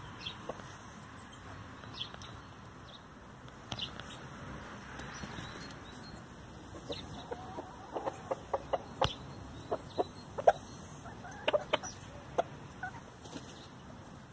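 Hens clucking in short, sharp notes as they feed on a pile of freshly cut grass, the clucks coming thick and fast from about halfway through.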